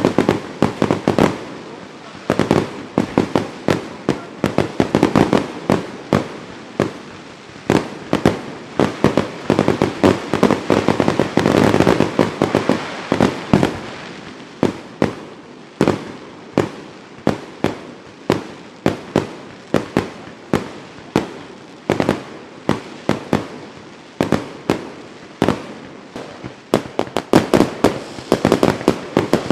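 Fireworks going off in a rapid, continuous barrage of sharp bangs and pops, several a second, thickening into a denser stretch about halfway through.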